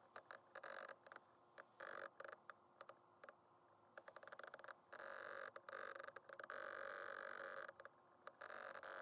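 Camera autofocus motor whirring in a string of short stop-start bursts, then running for a few seconds at a stretch in the second half.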